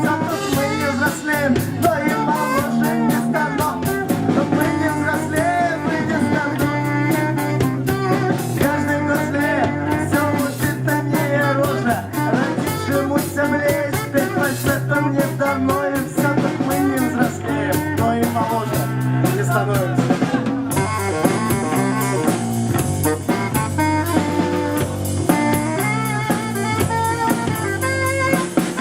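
A live band playing an instrumental passage of a song, with a drum kit and guitar. About two-thirds of the way through, the highest sounds drop out briefly, then return.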